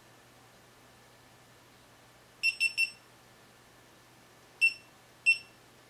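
Small handheld recording device beeping as it is switched on and its buttons are pressed: three quick high beeps about two and a half seconds in, then two single beeps near the end.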